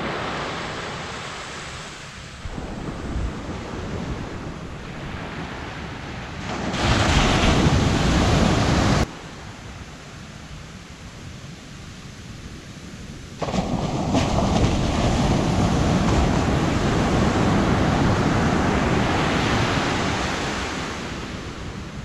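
Ocean surf washing up a sandy beach: a rushing hiss that swells and fades. It drops off abruptly about nine seconds in and comes back louder about four seconds later.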